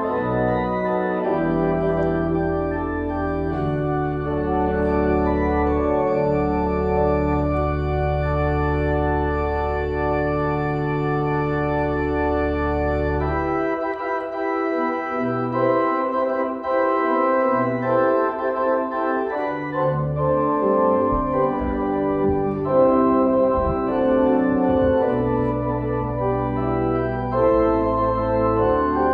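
Church organ playing the closing postlude in held, sustained chords; the low bass notes drop out for several seconds about halfway through, then come back.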